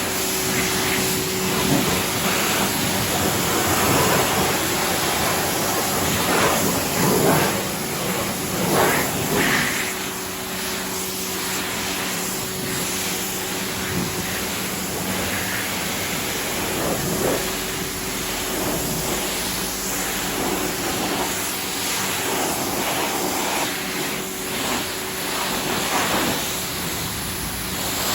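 AVA P60 electric pressure washer running, its motor giving a steady hum under the continuous hiss of the water jet spraying.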